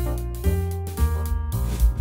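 Instrumental background music with keyboard-like notes, deep bass and a drum beat.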